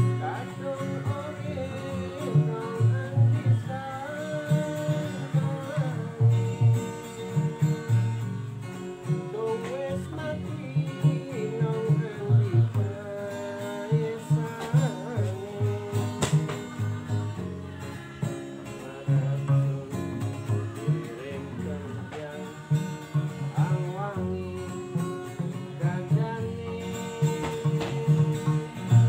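A Banyuwangi-style song played on makeshift instruments: plucked strings over a steady beat of low drum hits, with a sung melody that bends in pitch.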